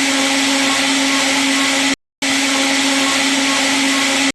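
CNC router spindle running at high speed: a loud, steady motor whine with a strong hum and hiss, which stops abruptly about two seconds in, resumes a moment later the same, and cuts off again at the end.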